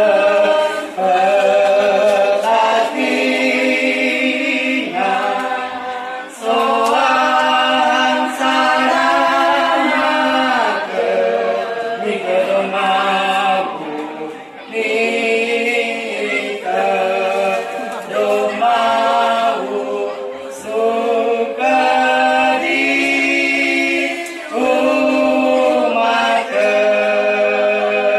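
Unaccompanied chanted singing in long held phrases, a man's voice sung into a microphone, with short breaks between phrases.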